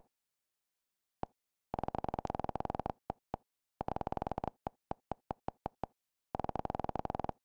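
Short electronic menu-navigation blips from a TV streaming box's interface as the channel-group list is scrolled. Single blips are spaced out, then three quick runs of rapid-fire blips come where the button is held down.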